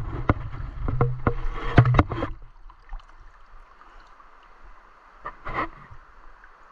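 Water sloshing and knocking close to the microphone over a low rumble for the first two and a half seconds, as the camera is moved at the water's surface. Then the quieter steady rush of a flowing river, with one short noisy burst about five and a half seconds in.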